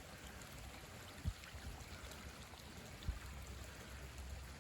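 Faint steady rushing noise, like running water, with two short low thumps about a second and three seconds in.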